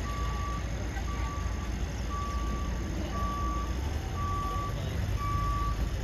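A vehicle's backup alarm beeping steadily, about one half-second beep each second, over the low rumble of an engine.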